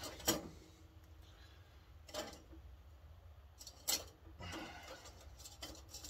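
A handful of light clicks and taps, a second or two apart, as a ring is handled and fitted back onto a kerosene heater's mesh-topped part, over a low steady hum.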